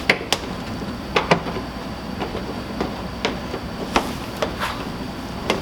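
Plastic interior trim panel of a minivan's rear door being pushed and tapped back into place, giving about ten sharp, irregular clicks and knocks as it seats.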